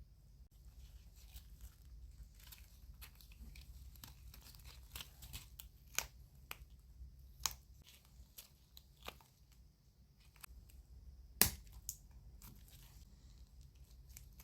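Close-up handling of resin-crafting materials: an irregular run of crackles and sharp little clicks, with a louder snap about eleven seconds in.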